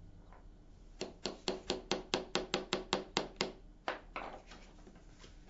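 Small hammer gently tapping the pin of a metal detector's cam-lock to seat it in the thumb bar: a quick run of about a dozen light taps, roughly five a second, then two more.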